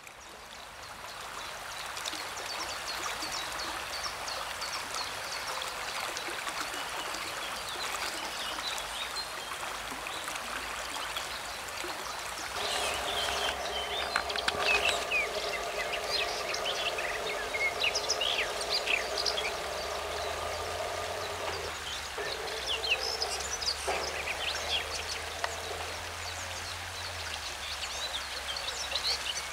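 Flowing river water rushing steadily, with small birds chirping, their calls busier in the second half. For about ten seconds from near the middle, a steady hum of several tones sounds under it and cuts off suddenly.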